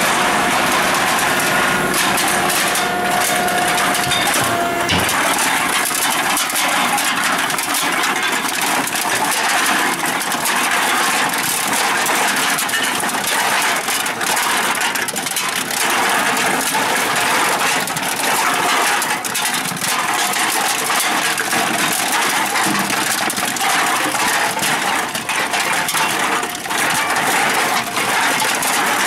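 Aluminum beverage cans clattering and being crushed in a running Toronita Model 10P can densifier. It makes a continuous metallic rattle of many small clinks over the machine's steady hum.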